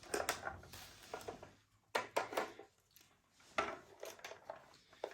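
Plastic parts of a new Arzum vacuum cleaner being handled and fitted together: a series of sharp clicks and knocks in small clusters, as the lower part is attached.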